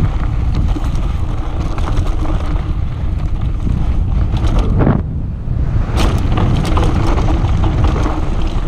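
Wind buffeting the microphone at speed over the rumble and rattle of a mountain bike's tyres and frame on a rough dirt downhill trail. It goes briefly quieter about five seconds in, then a clatter of knocks follows.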